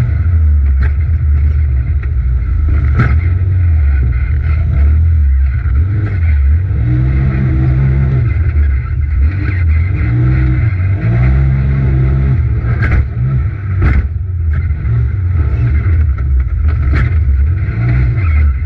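Polaris RZR XP Turbo side-by-side racing on dirt, heard from inside the cab: its turbocharged engine revs up and falls back again and again with the throttle, under a few sharp knocks from the chassis over bumps.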